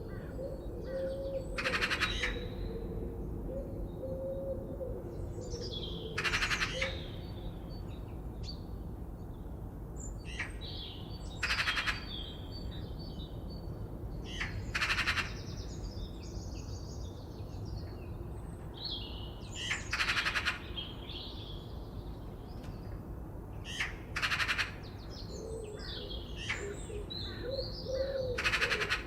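Forest birds calling. A loud, harsh call repeats about every four to five seconds, with smaller birds chirping in between, a low wavering coo-like note at the start and again near the end, and a steady low background noise underneath.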